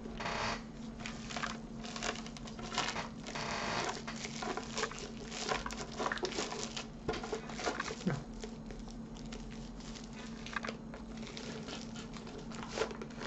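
Thin clear plastic sleeve crinkling and rustling as a rolled diamond-painting canvas is pushed and twisted into it. The crinkling comes on and off, busiest for the first seven seconds or so and fainter after.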